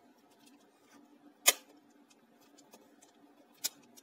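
Clicks and ticks from handling a disassembled portable CD player's plastic and metal chassis: one sharp click about one and a half seconds in, another near the end, and small ticks between.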